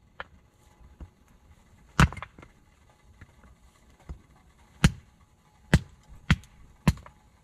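Firewood being broken up by hand: a series of sharp wooden cracks at uneven spacing, five loud ones, the last four coming in quick succession near the end, with fainter knocks between them.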